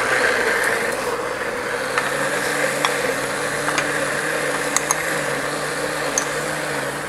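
Electric countertop blender running steadily, beating a liquid pudding batter of milk, eggs, condensed milk and whole unpeeled banana.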